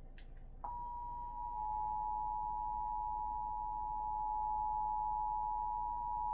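Emergency Alert System attention signal: the steady two-tone alert (853 Hz and 960 Hz sounded together) starts abruptly about half a second in and holds without a break. It announces an emergency message, here a Severe Thunderstorm Watch.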